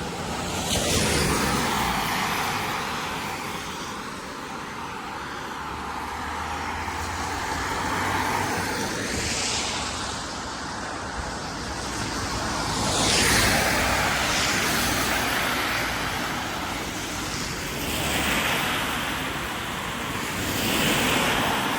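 Road traffic: cars passing one after another, each swelling up and fading away as it goes by.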